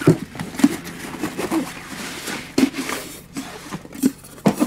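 Handling noise from a nylon camouflage MOLLE pouch: fabric rustling, with several dull knocks and taps as a stove cookset is moved about and pulled out of it.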